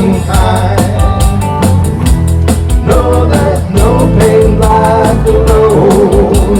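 Live country-rock band playing an instrumental passage: a drum kit keeps a steady, even cymbal beat under bass and a wavering melodic lead line.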